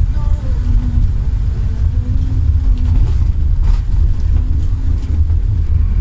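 Inrecar Géminis Puma bus on a Mercedes-Benz LO 916 diesel chassis driving along, heard from inside the passenger cabin: a loud, steady low engine and road rumble, with a brief rattle a little past halfway.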